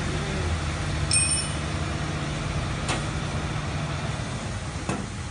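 Low steady machine hum from a powered-on aluminium double head cutting saw, fading past the middle. About a second in there is a sharp click with a short metallic ring, and lighter clicks follow near three and five seconds.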